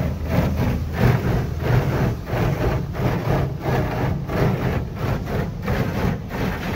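Touchless car wash spraying lava wax foam onto the car, heard from inside the cabin: a steady rush of liquid hitting the windshield and body that pulses about every two-thirds of a second, over a low hum.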